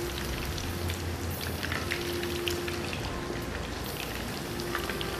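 Minced-meat kabab balls deep-frying in a pan of hot oil over a low flame: a steady sizzle full of small crackling pops.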